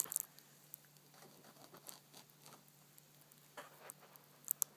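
Faint rustling and scratching of bedcovers, with scattered light clicks and two sharp taps near the end.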